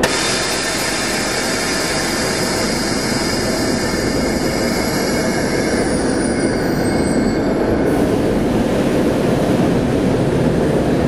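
TEP70 diesel locomotive moving slowly past, its diesel engine running loud and steady, with a high-pitched whine that fades and dips in pitch over the first several seconds. About eight seconds in, a steady hiss comes in.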